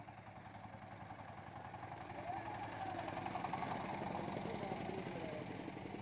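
Single-cylinder diesel engine of a two-wheel power tiller pulling a loaded trailer, chugging steadily and growing louder over the first couple of seconds, with faint voices.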